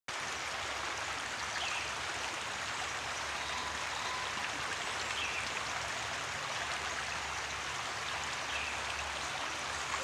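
Shallow river running steadily over and around rocks, an even rushing of water, with three faint short high calls, a bird, spaced a few seconds apart.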